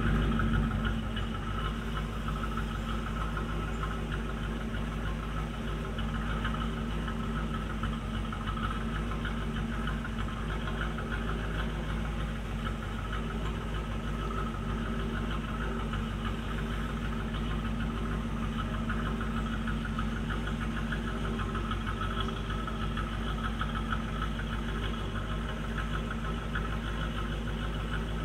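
Stock 1985 Camaro IROC-Z's LG4 305 V8, with its Quadrajet four-barrel carburettor, idling cold, heard at the exhaust. It is a little louder for about the first second, then settles into a steady idle.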